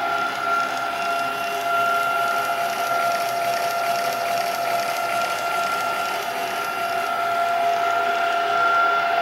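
Steady machinery hum with two steady whining tones over an even mechanical noise.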